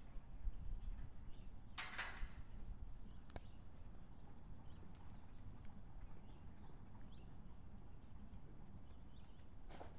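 Arabian mare walking under saddle on soft arena dirt: faint hoofbeats over a low steady rumble, with one short breathy burst about two seconds in.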